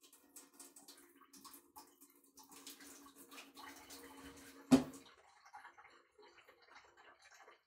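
Kitchen tap running into a dish of flour with a steady hum and splashing, which stops about five seconds in at one loud knock. After that, faint handling sounds of hands working the wet dough in the dish.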